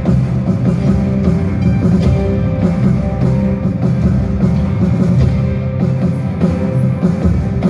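Loud rock-style worship music with electric guitar and drum kit over a heavy bass line.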